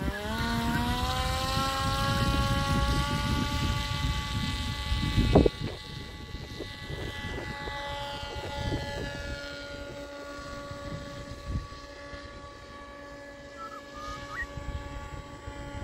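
Electric brushless motor driving the 16-inch three-blade propeller of a 1/3-scale RC ultralight at full power for takeoff: a pitched whine that rises over the first second, then holds steady and fades slowly as the plane climbs away. Rough low noise sits under it for the first few seconds, and one loud thump comes about five seconds in.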